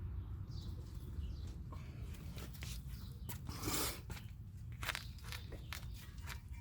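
Hand tools working on a car's brake caliper bracket bolts: scattered metallic clicks and knocks, with a longer scraping rasp about three and a half seconds in.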